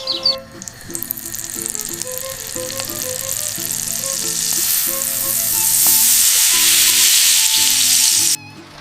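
Sizzling hiss of cooking on a stove. It starts about half a second in, grows steadily louder and cuts off suddenly near the end. Soft background music plays under it.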